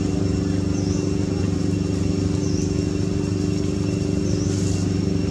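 Steady low engine hum that holds the same pitch throughout, with a short high chirp repeating about once a second.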